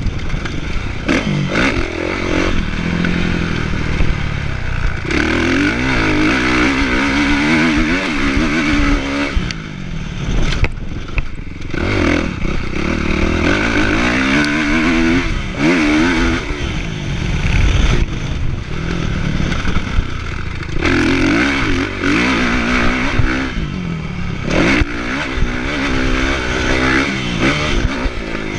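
Kawasaki motocross bike's engine revving hard and dropping off again and again: the throttle opening and closing through a lap of a motocross track.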